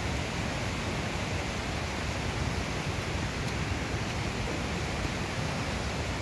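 Steady rush of flowing water, an even noise with no breaks or separate events.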